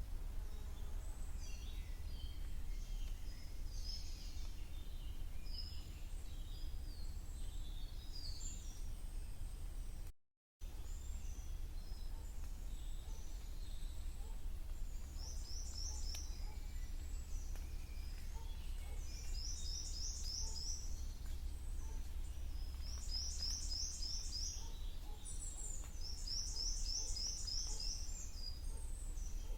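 Spring woodland birds singing and calling, one bird repeating a fast trill of quick sliding notes several times in the second half, over a steady low rumble. The sound drops out completely for a split second about a third of the way in.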